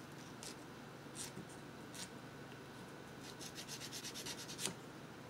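Small hobby file scraping a plastic model part to smooth out a seam line: a few single strokes, then a quick run of about ten strokes near the end.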